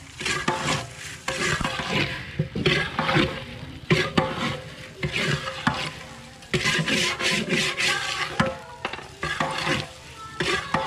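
Long-handled metal spatula scraping and stirring biryani rice in a large aluminium pot, in repeated strokes that come in irregular bursts.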